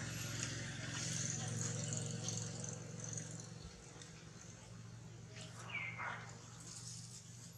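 A single short, high squeal from a monkey, bending downward, about six seconds in, over a steady low hum.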